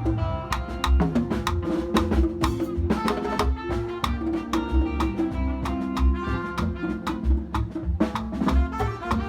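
Latin-style music with drums, a heavy bass line and melodic instruments, played loud.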